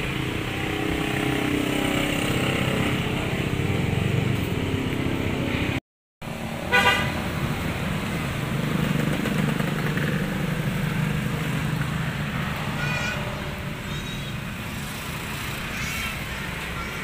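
Street traffic: motorcycle engines passing, swelling and fading twice, with a short horn toot about seven seconds in. The audio cuts out briefly just before the toot.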